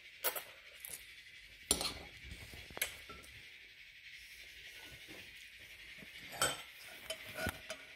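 Metal spoons and chopsticks clinking against white ceramic bowls during eating, in a handful of sharp clinks a second or more apart.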